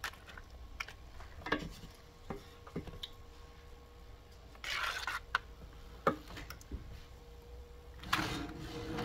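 Dry lasagna noodles handled in a baking dish: scattered small clicks and taps, a scraping rustle about five seconds in, and a wet spoonful of tomato sauce going on near the end, over a steady low hum.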